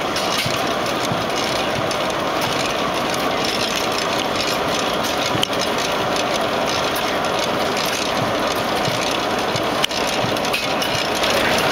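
Hornsby-Akroyd hot-bulb oil engine running with a steady mechanical clatter.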